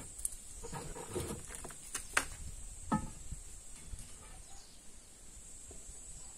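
A few irregular knocks and clinks, as of hand tools on stone, over a steady high-pitched insect drone. One clink about three seconds in rings briefly.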